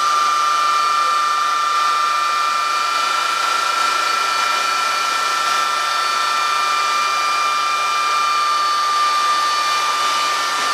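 Steady machine whine and rush from a powered-up MH-60 Jayhawk helicopter in the cockpit, a strong high tone held over a hiss.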